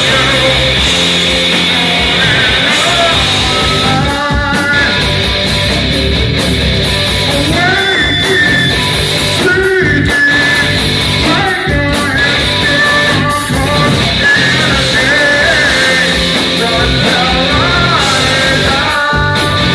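Heavy metal band playing live: distorted electric guitars and a Tama drum kit, with a vocalist singing and shouting into a microphone over them.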